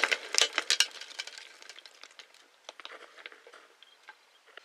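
Shattered glass jar fragments and debris landing and clinking after a firecracker blast: a dense patter of sharp clicks at first that thins out to scattered ticks over a few seconds.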